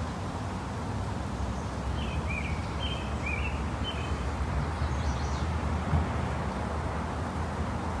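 Outdoor background noise: a steady low rumble. A bird chirps a few short, quick notes about two to three and a half seconds in.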